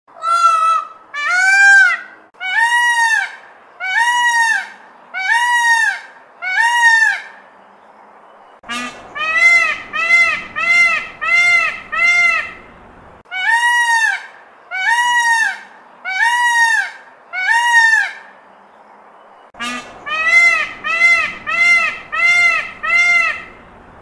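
Indian peacock calling: loud, honking calls, each rising and falling in pitch, repeated about once a second in four runs of five or six calls with short pauses between them.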